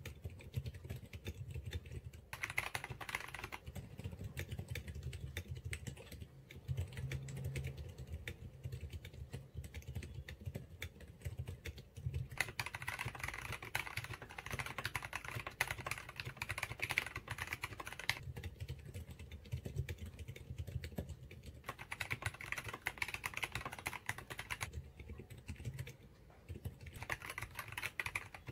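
Steady typing sound test on a DIY 40% mechanical keyboard built on a Contra PCB, in a faux-leather-covered cardboard case filled with foam. Partway through, the typing moves to a second mechanical keyboard, a black 60% board.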